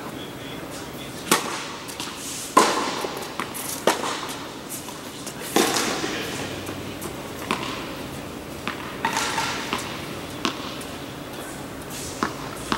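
Tennis balls being struck by rackets and bouncing on a hard court: a series of sharp pops that echo in a large indoor tennis hall.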